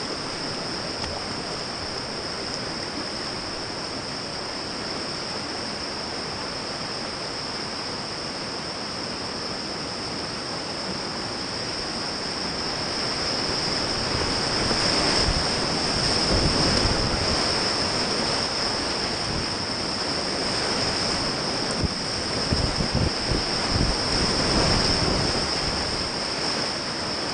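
Whitewater river rapids rushing around a kayak, with a steady high hiss; the rush grows louder about halfway through as the boat runs into white water, with splashes and wind buffeting on the microphone near the end.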